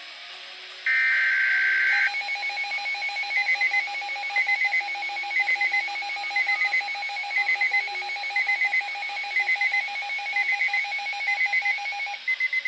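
Emergency broadcast alert tones: a loud, one-second burst of screechy digital data tone about a second in, followed by about ten seconds of a pulsing electronic alert signal, with beeps about once a second over a rapidly warbling lower tone. It is the attention signal that announces a severe weather warning.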